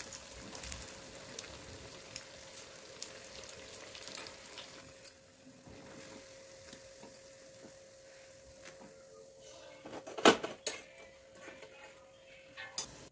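Gram-flour-battered raw banana bajji deep-frying in hot oil in a kadai, crackling and sizzling with small pops, thinning out after about five seconds as the fritters are lifted out. About ten seconds in comes a sharp metal clink, the loudest sound, as the slotted metal ladle knocks against the cookware, with a few lighter clinks around it.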